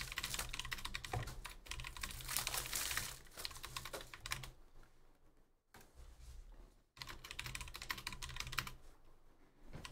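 Rapid typing on a computer keyboard in two runs of keystrokes, with a pause of about two seconds in the middle.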